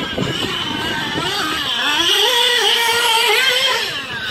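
Nitro RC buggy's small two-stroke glow engine revving up and down as the car drives, its high pitch held steadier for a second or so past the middle.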